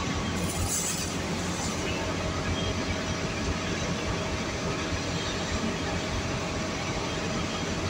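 Steady low rumble of a city bus's engine and road noise heard from inside the passenger cabin, with a brief hiss about a second in.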